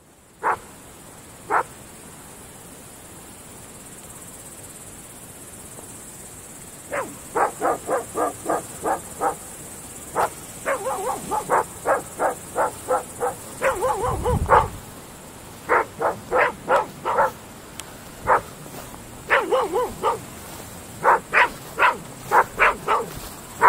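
Groenendael Belgian Shepherd dogs barking: two single barks at the start, then, from about seven seconds in, repeated runs of quick barks, several a second. A brief low rumble sits under the barking about halfway through.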